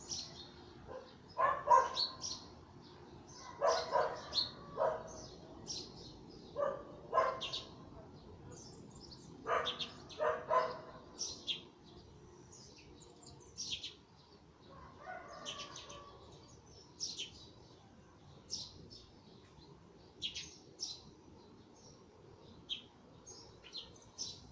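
Dawn chorus of small birds chirping throughout. In roughly the first half, short, louder, lower calls come singly and in pairs about every second or two, then stop.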